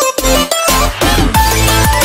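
Electronic music with deep bass notes that slide downward in pitch, about two a second, under a busy upper melody.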